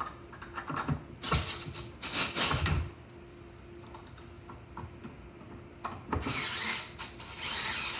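Wooden desk parts knocking and rubbing as the typewriter mounting block is fitted, then a small power drill whirring to drive the block's screws: a short run about six seconds in, and another starting near the end.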